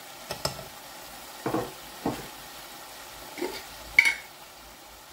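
A metal spoon knocking against a cooking pot as chili powder is spooned in: a few soft knocks, then a sharp ringing clink about four seconds in, over a faint steady hiss.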